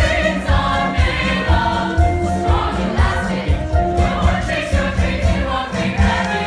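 Musical theatre cast singing together in chorus over musical accompaniment with a steady beat.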